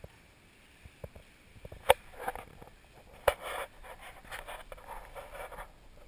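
A flat floor mop is sliding and scraping over a wooden floor in uneven strokes. There are two sharp knocks, about two and about three and a half seconds in.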